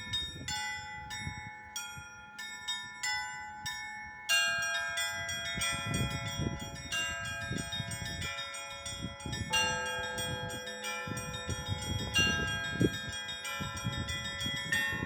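Bells being rung in a quick, uneven pattern of strikes, each note ringing on under the next. About four seconds in, more and higher-pitched bells join and the ringing grows louder and fuller.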